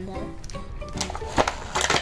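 Plastic clicks and snaps of a Bakugan toy being folded and sprung open in the hands, with a sharp click about one and a half seconds in, over background music.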